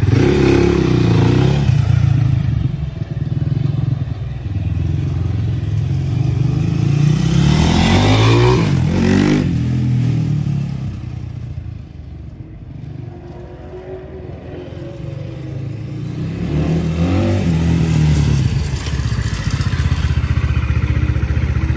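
EGL A17 300 dirt bike's single-cylinder four-stroke 300cc engine. It runs steadily, then revs up and down through the gears about eight seconds in as the bike rides off. It fades as the bike moves away, grows louder again with more revving as it comes back, and settles to a steady idle near the end.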